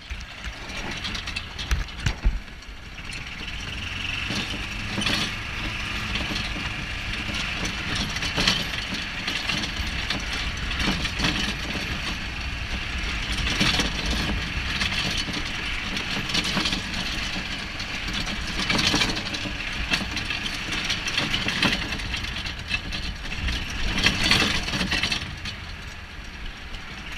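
Golf cart driving along a floating marina dock: steady running and tyre noise with a low rumble, and a short knock every two to three seconds.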